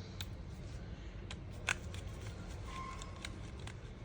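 Small clicks and taps of a screwdriver and tiny screws as the screws holding a smartphone's inner cover are taken out, with one sharper click a little under two seconds in.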